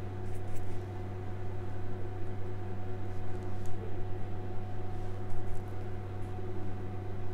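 A steady low electrical hum, like a running appliance or fan, with a few faint soft clicks over it.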